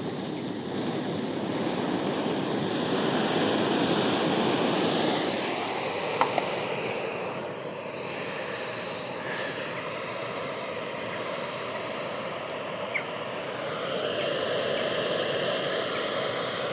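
Jetboil MiniMo canister gas stove burning steadily under a pot of water, a continuous rushing hiss as it heats toward the boil.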